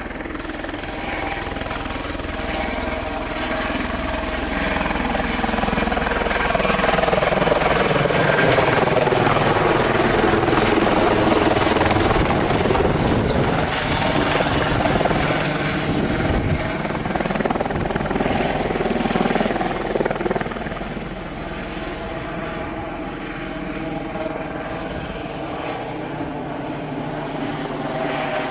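Eurocopter EC120B Colibri helicopter hovering low and manoeuvring: its Turbomeca Arrius turboshaft and rotors run with a steady high whine over the rotor noise. It grows louder as the helicopter turns a few seconds in and eases off again over the last several seconds as it moves away.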